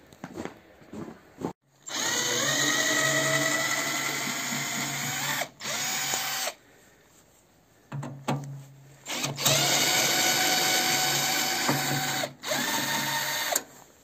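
Cordless drill-driver backing screws out of a washing machine's sheet-metal frame. The motor whines up and runs in about five bursts, two long and three short, with pauses between.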